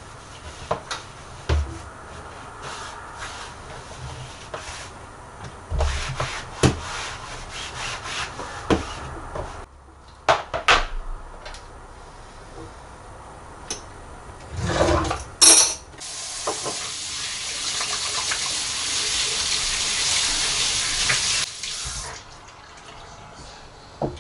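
Kitchen sink tap running for about six seconds in the second half, a steady hiss that stops when it is turned off. Before it come scattered clicks and knocks of things being handled at the sink.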